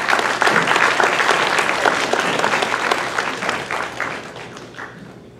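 Audience applauding, loudest at first and tapering off over the last couple of seconds.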